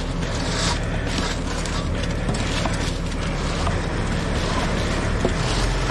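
Ready-mix concrete truck running steadily, its drum turning as wet concrete is discharged down the chute: a continuous mechanical rumble with a low steady hum.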